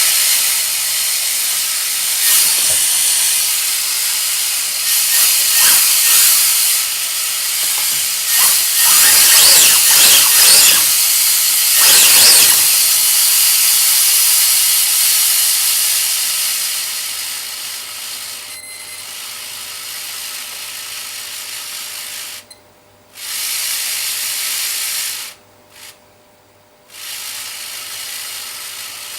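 Small electric motor spinning a 3D-printed 1/10-scale V8 model engine, its moving parts whirring with a hissing rattle as the throttle is worked. It surges loudest over the first half, then runs lower, and cuts out abruptly twice near the end.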